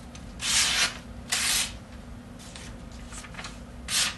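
A sheet of paper being sliced with a very sharp pocket knife: several short papery swishes, two louder ones in the first two seconds, fainter ones after, and another near the end.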